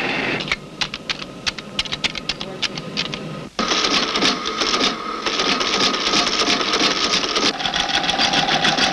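Keys struck on the keyboard of a punched-tape program-preparation machine: a few separate clacks. Then, from about three and a half seconds in, the machine runs with a rapid, continuous mechanical clatter and a steady whine as it prints and punches the program tape. The whine drops to a lower pitch about seven and a half seconds in.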